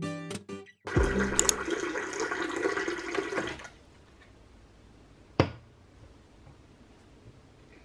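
Water running from a countertop water purifier's spout into a ceramic mug for about two and a half seconds, then stopping. A single short knock follows a couple of seconds later.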